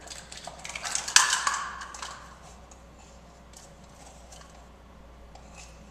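Measuring cups and ingredient containers clattering on a kitchen counter, with a sharp knock about a second in. Quieter light clicks and rustling follow.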